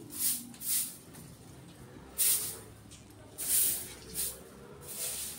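Butane lighter hissing in short spurts, several times, as it is flicked again and again to light a candle.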